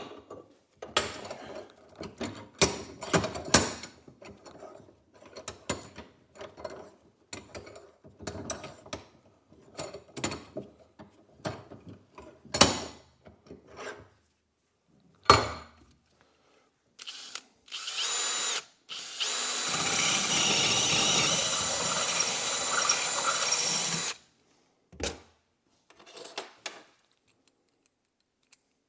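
Irregular metal clicks and scrapes, then a power drill running in a short burst and then steadily for about four and a half seconds, turning an 8.5 mm reamer to open up the bolt hole in a door hinge.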